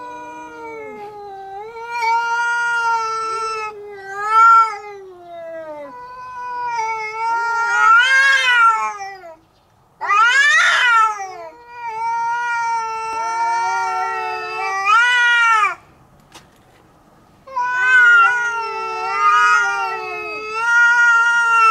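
Cats in a fight standoff, a tabby and a calico, caterwauling: long drawn-out yowls that swell and waver in pitch, one after another. There are brief breaks about nine seconds in and again around sixteen seconds. These are the threat calls of a territorial quarrel.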